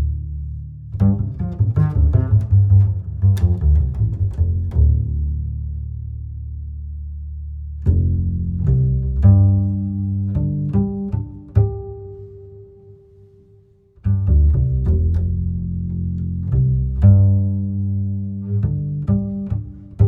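Background music of low plucked and bowed strings in short phrases; it fades out partway through and starts again abruptly about two-thirds of the way in.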